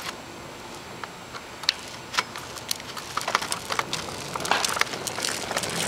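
Hard plastic tricycle wheels rolling over brick paving, with a run of irregular clicks and rattles that grows busier about halfway through.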